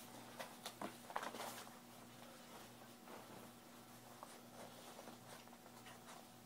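Faint rustling and a few light clicks as a baby rocker's fabric seat liner and frame are handled, mostly in the first second and a half. After that it is near quiet, with only a faint steady hum.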